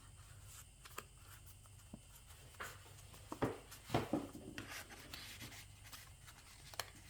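Paper pages of a handmade junk journal being turned and handled: brief rustles and light taps of paper, busiest around the middle.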